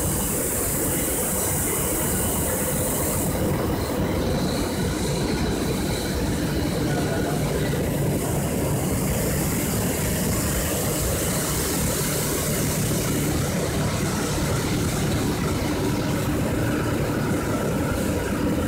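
PE plastic film recycling machine running, a steady mechanical drone, while its conveyor belt feeds bubble-wrap film into the machine. A high hiss on top eases about three seconds in.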